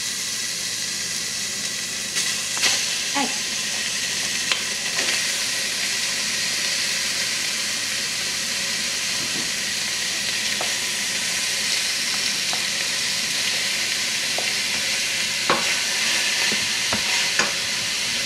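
Pork frying in a hot pan, a steady sizzle with a few clicks and taps of a spatula.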